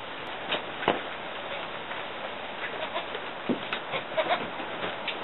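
Newborn goat kids shuffling in straw bedding beside the doe: soft rustles and scattered light clicks over a steady hiss, with a faint short call around four seconds in.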